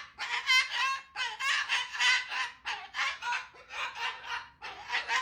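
African grey parrot giving a run of harsh, raspy clucking squawks, about two a second, with a short whistled note about half a second in.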